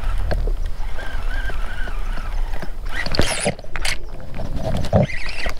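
Wind rumbling on the microphone and water noise from a kayak while a hooked fish is reeled in on a baitcasting reel. A few short, sharp sounds come about three and five seconds in.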